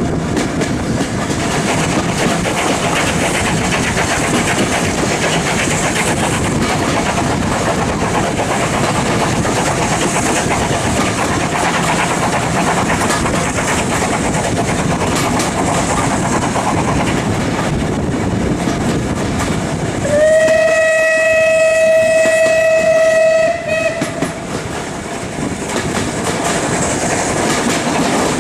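Steam-hauled passenger train running on the rails, heard from a carriage window: a steady rattling rumble of the wheels on the track. About twenty seconds in, the locomotive's steam whistle sounds one long steady note for about three and a half seconds.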